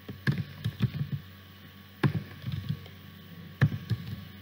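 Typing on a computer keyboard: quick runs of keystroke clicks in three short bursts with pauses between.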